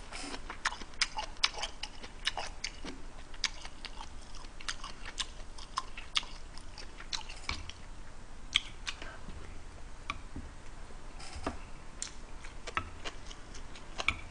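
A person chewing a mouthful of kimchi stew close to the microphone, with irregular wet mouth clicks and smacks.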